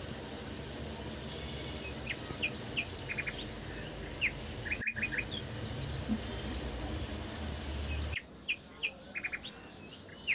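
Small birds chirping: short high notes, often in quick runs of three or four, repeated throughout. Under them a low steady background noise drops away about eight seconds in.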